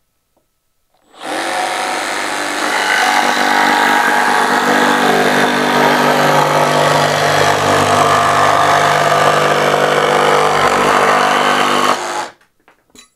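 Makita DJV184 18V brushless cordless jigsaw cutting a curve in a wooden board, its blade guided round a circle-cutting compass on the guide rail. It starts about a second in, runs steadily and a little louder after its first second or so, then stops abruptly near the end.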